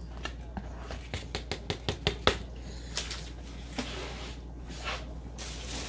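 Kitchenware clicking and tapping as shredded chicken is tipped and scraped into a pot of gumbo: a quick run of sharp taps in the first two seconds, the loudest near the end of that run, then a few scattered taps.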